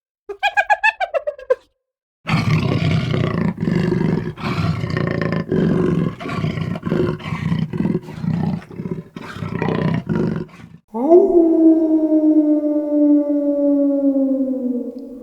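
Animal calls: a short call of rapid pulses falling in pitch, then about eight seconds of rough, noisy calls broken into pulses, then near the end one long pitched call that rises briefly and then slowly falls.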